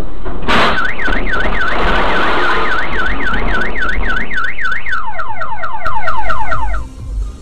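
Loud electronic siren that starts suddenly and sweeps up and down about three to four times a second. About five seconds in it changes to quick falling sweeps, about five a second, then cuts off sharply near seven seconds.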